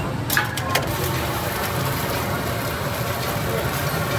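Eggs frying on a flat steel griddle: a steady sizzle over a low rumble, with a quick run of sharp metal clicks about half a second in from a spatula striking the griddle.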